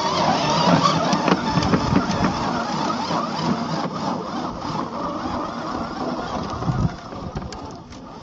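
Radio-controlled scale crawler's 50T electric motor and gears running as it crawls over loose limestone rock, with tyres and stones crunching and clicking. It fades as the truck moves away up the slope, with a thump about seven seconds in.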